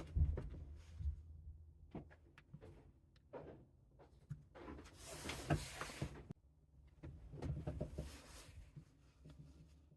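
Small clicks and scraping of pistol parts being handled on the bench while a screw is put back into the plastic chassis, with two longer rustling, scraping stretches in the middle and later on.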